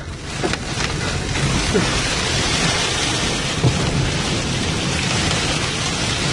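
Sandstorm wind driving sand against a car, heard from inside the cabin: a dense, steady hiss over a low rumble that swells about half a second in.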